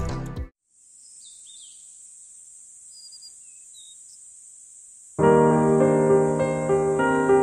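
Piano background music starts abruptly about five seconds in. Before it is a quiet stretch of steady faint hiss with a few faint high chirps.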